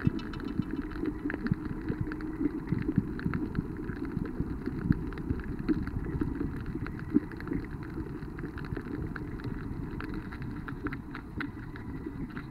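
Underwater sound picked up through a waterproof camera's sealed body: a steady, muffled low rumble of moving water with many scattered crackling clicks.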